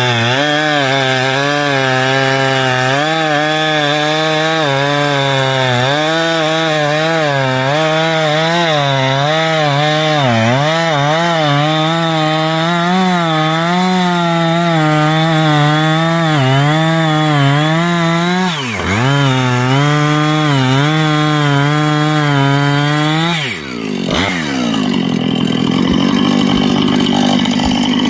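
Chainsaw running at high revs while cutting wood, its pitch wavering up and down under load. About 18 seconds in the revs dip briefly and recover; about 23 seconds in the throttle drops off and the engine falls to a rougher, lower running.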